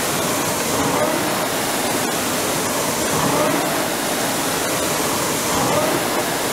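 Concept2 indoor rowing machine's air-resistance flywheel whirring steadily. On each drive it swells with a rising whine, about one stroke every two and a half seconds.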